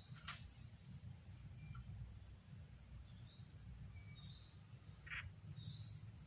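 Insects shrilling a steady high-pitched drone, with a bird giving a few short rising chirps and a low steady rumble underneath. A sharp click comes just after the start.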